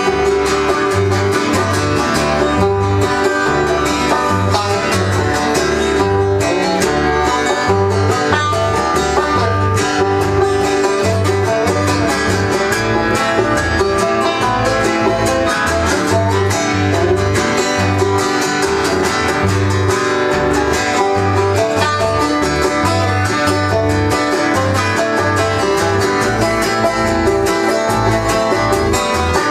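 Instrumental break of a folk song by a string band: plucked acoustic strings playing over a bass line, with no singing.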